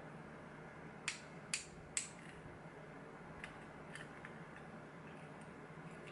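Small metal parts of a disassembled pin-tumbler lock being handled: three sharp clicks about half a second apart around a second in, then a few fainter ticks.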